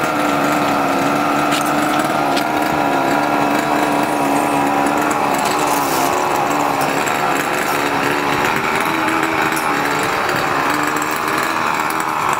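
Small gas engine of a Wraptor tree-climbing machine running steadily as it carries the climber up the trunk, its pitch wavering slightly.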